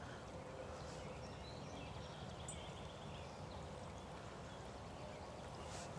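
Faint outdoor ambience: a steady low rumble and hiss with a few faint bird chirps.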